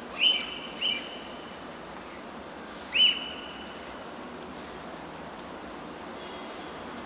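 A steady, high-pitched chorus of night insects. Three short, loud, high squeaks cut across it, each dropping quickly in pitch and then holding: two about half a second apart near the start, and a third about three seconds in.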